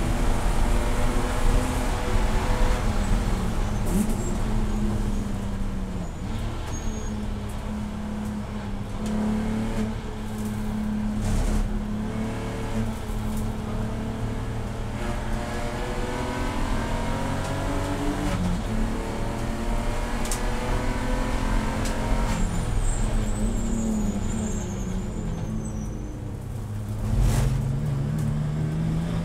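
Race car engine running hard, its pitch climbing under acceleration and dropping off again and again, with a long climb near the end. A couple of sharp knocks cut through.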